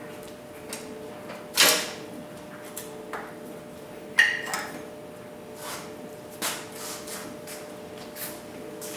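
Hand tools and metal bike parts being handled: scattered clanks and knocks, with a short scraping rattle under two seconds in and a sharp metallic clink that rings briefly about four seconds in, over a faint steady hum.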